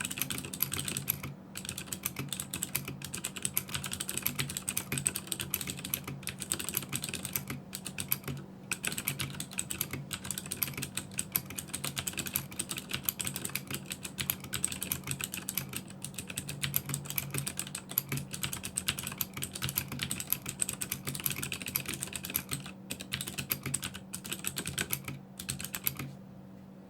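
Fast, continuous typing on a Das Keyboard 4 Pro mechanical keyboard with Cherry MX Blue switches fitted with O-rings: a dense stream of clicky keystrokes with a few brief pauses, stopping shortly before the end.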